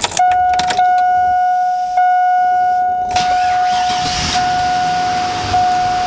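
Chevy Avalanche's electronic warning chime sounding as one steady high tone with a faint tick in it about every second, with the ignition on and the engine not yet running.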